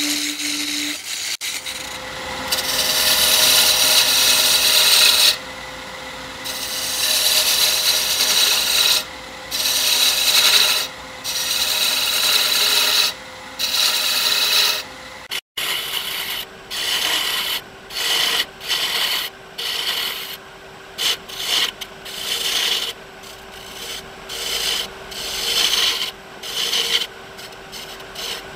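Wood lathe running with a steady hum while a turning tool cuts the spinning walnut in repeated passes, each pass a rasping hiss. About halfway through the sound breaks off for an instant, then the hum goes on at a lower pitch under shorter, quicker cuts.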